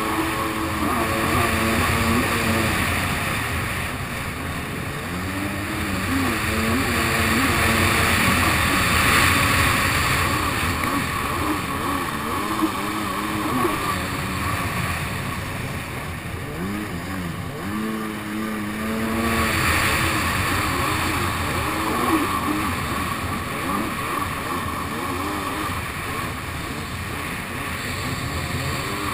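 Kawasaki SX-R 800 stand-up jet ski's two-stroke twin with a TBM dry pipe exhaust, running under way, its pitch rising and falling as the throttle changes through turns. Water spray and wind hiss run underneath.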